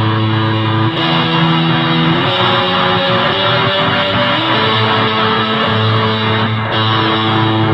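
Electric guitar played through a custom pedal combining a Rams Head–style fuzz with experimental modulated reverbs, heard through a small amp: sustained notes that hold and blend, changing chord four times.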